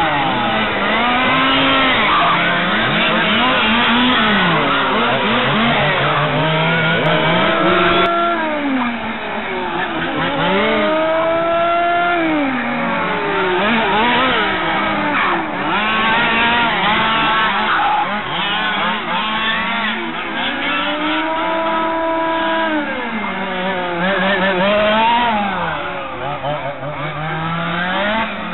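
Several 1/5-scale RC touring cars' small two-stroke petrol engines racing, their pitch rising and falling over and over as they accelerate down the straights and lift off for the corners, several engines overlapping at once.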